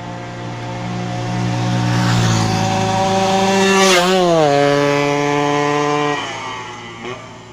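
Yamaha RX-King single-cylinder two-stroke motorcycle passing at speed: its steady engine note grows louder, drops in pitch as it goes by about four seconds in, then fades away.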